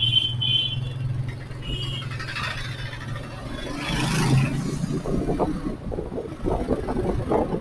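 Motorcycle ride through city traffic: the bike's engine hums steadily under road and traffic noise, with a short high beep about two seconds in. In the second half, irregular wind rumble buffets the microphone.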